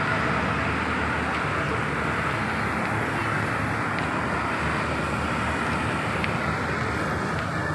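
Steady, even rush of outdoor background noise with no distinct events.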